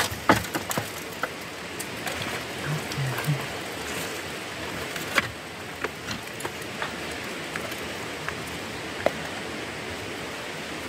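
Light clicks and knocks as a handmade wooden basket trap is handled and set into a muddy hole, over a steady hiss.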